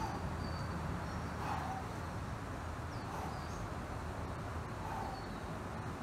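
Steady low outdoor background noise with faint high chirps, and a soft call that repeats about every one and a half to two seconds.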